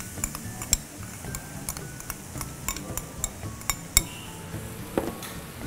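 Scattered clinks and knocks of a glass bowl and a wooden spatula against a frying pan as riced cauliflower is tipped in, with a sharper knock about four seconds in.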